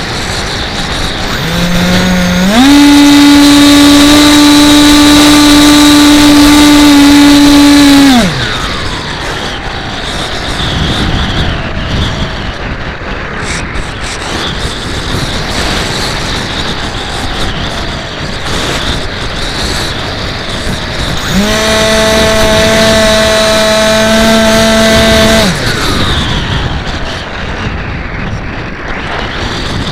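Brushless electric motor of an AXN Floater RC plane with wind rushing over the microphone: the motor steps up to a steady high whine for about six seconds and winds down, then throttles up again to a slightly lower steady whine for about four seconds later on.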